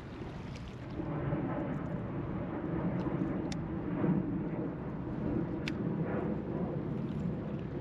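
Wind buffeting the microphone over choppy river water around an open fishing boat, a steady rushing noise that grows a little louder about a second in. A few light clicks come through near the middle.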